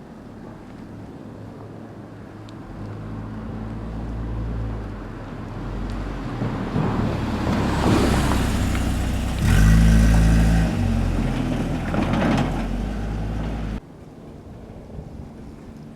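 A vehicle passing close by: its running noise builds over several seconds, is loudest about ten seconds in, then cuts off suddenly near the end.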